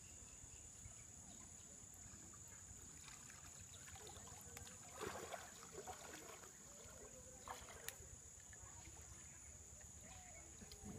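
Faint water splashing as a man wades in a shallow stream and handles a cast net, loudest about five seconds in and again briefly near eight seconds, over a steady high hiss.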